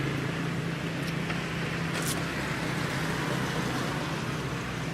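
Steady background noise with a low motor hum that fades about two seconds in, and a short click at about the same point.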